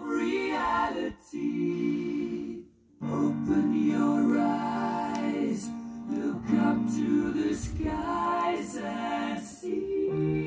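Music with singing played from a vinyl record on a Thorens TD105 MK2 belt-drive turntable, with a short break about three seconds in.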